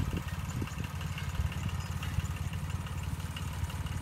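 Small farm tractor's single-cylinder diesel engine running with a fast, steady chugging beat as it hauls a trailer loaded with rice sacks through a muddy field, with a faint regular ticking over the chug.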